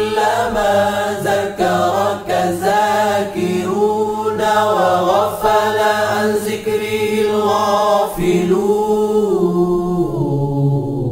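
Islamic devotional chanting sung a cappella: a melodic voice of long, bending notes over a steady low hummed drone. The upper voice thins out near the end.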